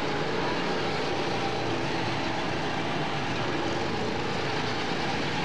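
Several go-kart engines running together as the karts race past, making a steady drone.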